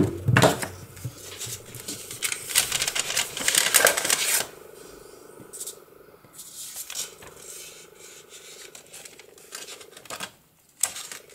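Sheets of printed paper rustling and crinkling as they are handled and folded, busy and loud for the first four seconds or so, then softer scattered handling noise. A sharp knock right at the start.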